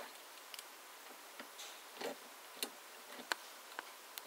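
Faint, irregular clicks and taps of a die-cast toy car being handled by fingers, with a few short rustles; two sharper clicks stand out past the middle.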